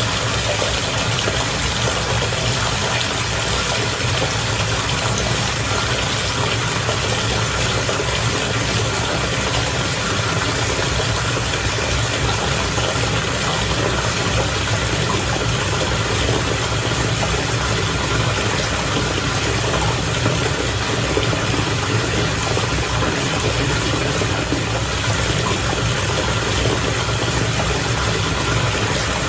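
Bath water bubbling steadily over a constant low mechanical hum.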